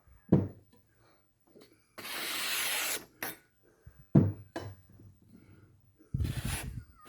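Freshly sharpened kitchen knives being handled and tried: a one-second rubbing stroke about two seconds in and another near the end, with a few sharp knocks between them.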